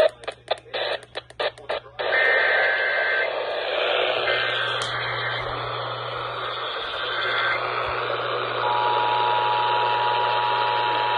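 Emergency Alert System activation heard over a hissing radio feed: three short bursts of SAME digital header tones, then about three-quarters of the way in the steady two-tone EAS attention signal starts.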